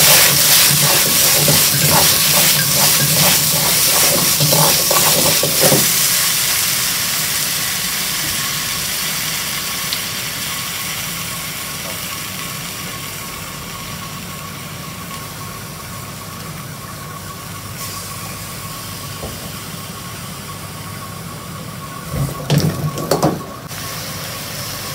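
Cooking wine sizzling in a hot wok of winter melon, loud at first and dying down to a steady hiss over the gas wok burner's roar. For the first six seconds a ladle knocks and scrapes as the pieces are tossed, and a few sharp knocks come near the end.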